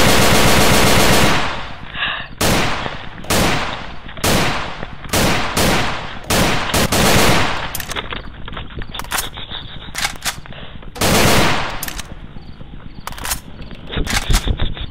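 Gunfire sound effects: a second and a half of continuous automatic fire, then irregular single shots and short bursts, each with a trailing echo.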